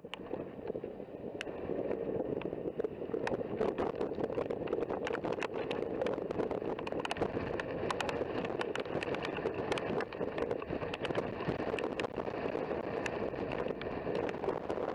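Steady wind rushing across the microphone, with many scattered sharp ticks throughout.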